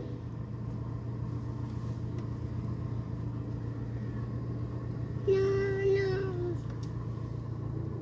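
Car engine running with a steady low hum, heard from inside the cabin. About five seconds in, a high drawn-out vocal sound lasts about a second and drops in pitch at the end.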